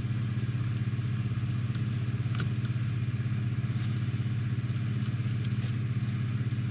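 Steady low mechanical hum with a fast, even pulse, from a machine running in the room. A few faint light clicks of small model parts being handled sound over it.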